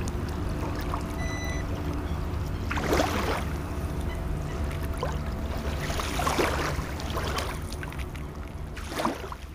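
Shallow lake water lapping and splashing close to the onboard camera of a stationary RC car, with three short louder splashes about three, six and nine seconds in. Under it runs a steady low rumble, and the sound fades out at the end.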